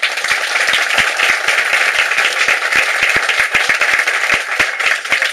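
Audience applauding: many hands clapping at once in a dense, steady patter, with a few close, sharp single claps standing out.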